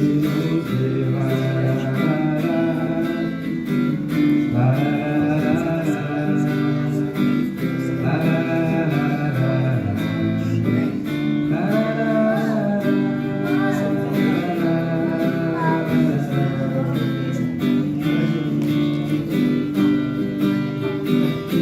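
Guitar strummed in a steady rhythm while a voice sings the melody over it.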